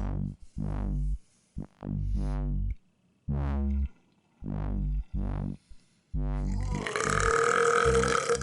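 Electronic music with short, repeated synth bass notes, then a long, loud belch starting about six seconds in and lasting to the end.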